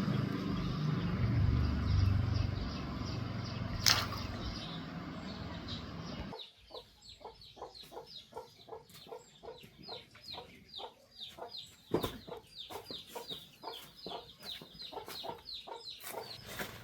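A motor vehicle running with a steady low rumble, one sharp click about four seconds in. It cuts off suddenly after about six seconds, giving way to chickens calling in a rapid run of short, falling notes.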